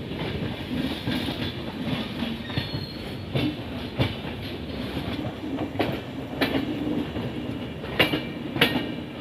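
Passenger train running along the track with a steady rumble, its wheels clacking over rail joints: sharp clicks in pairs, three pairs about two seconds apart in the second half.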